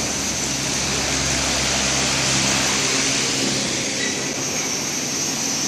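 Steady machine noise of a running industrial oil curtain fryer line, with a thin high whine throughout and a low hum that drops away about three seconds in.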